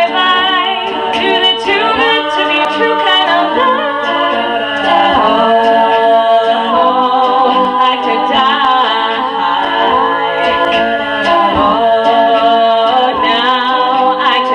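Women's a cappella group singing, several voices holding chords in harmony with no instruments.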